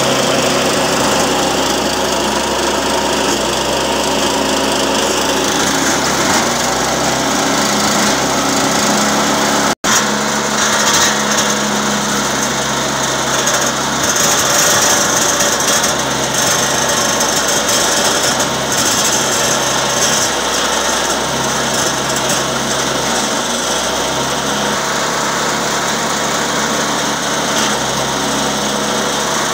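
Homemade branch chipper, belt-driven by a small air-cooled engine, running steadily and cutting fed-in leafy branches into wood chips. The engine noise is mixed with the noise of the wood being chipped.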